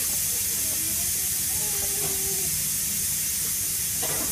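Steady hiss throughout, with faint short pitched fragments in the background and a single short click near the end.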